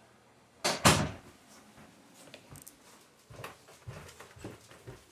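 Two sharp knocks in quick succession about a second in, then a run of lighter thuds and taps.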